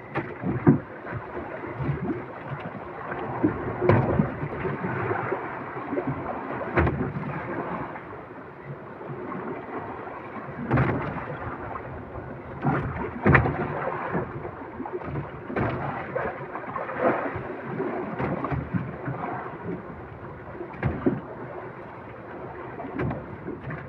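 Water sloshing and slapping against a small fishing boat's hull, with a rumble of wind and water noise and irregular knocks from the boat and fishing gear as the line is handled at the gunwale.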